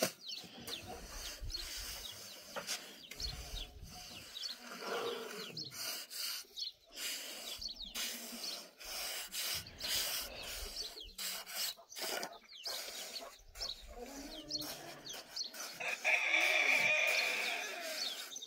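Chickens clucking amid scraping and knocking from things being handled, with a louder drawn-out sound about two seconds before the end.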